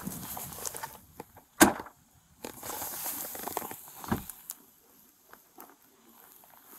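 Rustling and handling noise against a body-worn camera as the wearer moves and crouches beside a pickup truck. A single sharp knock comes about a second and a half in, and a softer thump follows about four seconds in.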